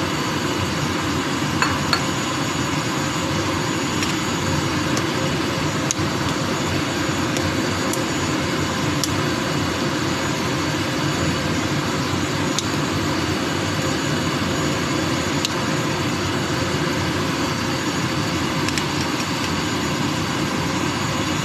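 A pot of vegetable soup at a rolling boil, a steady bubbling noise, with a few light clicks of a spoon against the pot as the vegetables are stirred.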